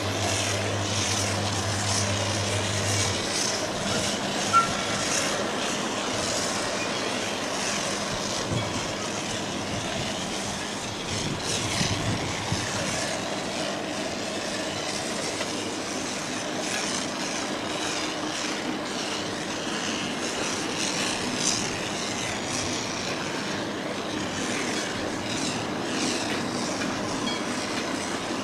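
Diesel shunting locomotive running slowly through the yard with a diesel locomotive and a coach in tow, its engine note steady. Wheels clank a few times over the pointwork, once sharply a few seconds in.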